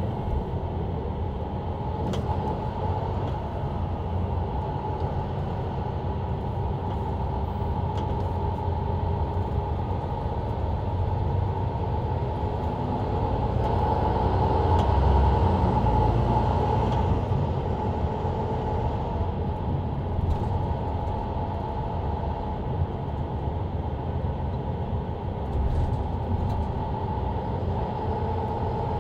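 Inside a Mercedes-Benz Citaro C2 LE city bus under way, heard from near the rear: the diesel engine and ZF Ecolife automatic gearbox running, with steady road and tyre noise. It grows louder about halfway through, then eases back.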